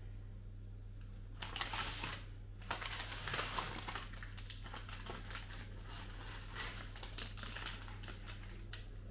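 Baking paper crinkling and rustling as it is folded and wrapped, in irregular crackles starting about a second and a half in, loudest over the next two seconds and thinning out near the end.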